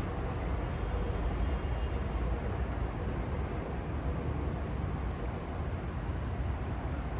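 Steady rain falling, with a low rumble of city traffic underneath.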